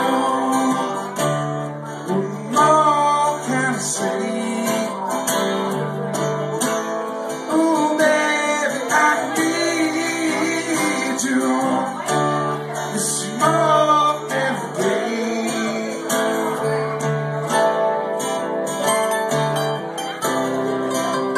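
Mandolin and strummed acoustic guitar playing a song together live.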